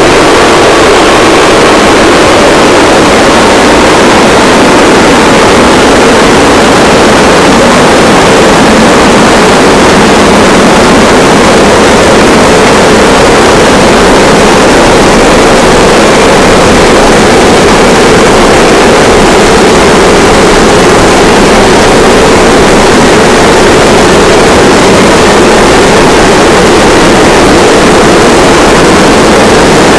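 A large crowd applauding and cheering in a loud, steady, unbroken roar.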